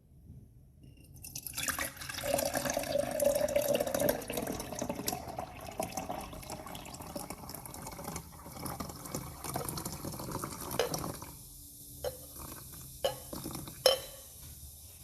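Luminol solution being poured into the hydrogen peroxide and potassium ferrocyanide solution, splashing and trickling, starting about a second in, loudest early and tapering off, with a few sharp ticks near the end.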